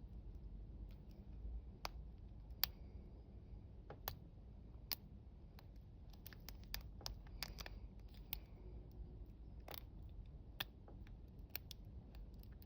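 Lock pick and tension wrench working inside a Gorilla Guard wafer padlock: faint, irregular sharp clicks and light scraping as the wafers are lifted.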